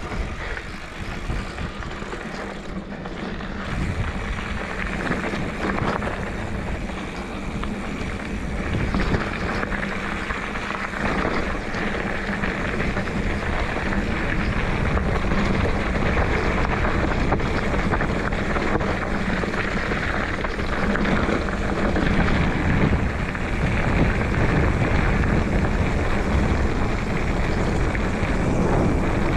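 Wind rushing over the microphone of a moving rider, with a steady low rumble underneath, growing louder partway through.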